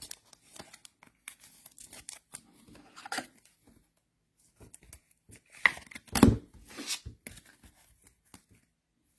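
Trading cards being handled: soft rustles, slides and small taps, with a louder bump about six seconds in.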